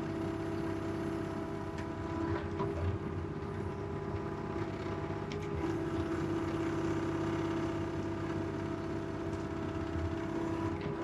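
Excavator engine and hydraulics running in a steady, noisy drone while the bucket grades dirt, with a few faint clicks and knocks along the way.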